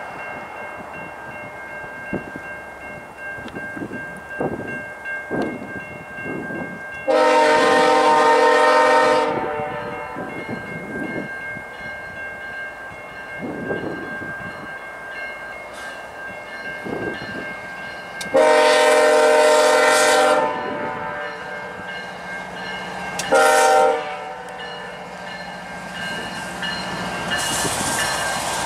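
GE ES44AC diesel locomotive approaching and sounding its chime horn: two long blasts about ten seconds apart, then a short one, the opening of the long-long-short-long grade-crossing signal. Near the end the locomotive's running noise grows loud as it draws close.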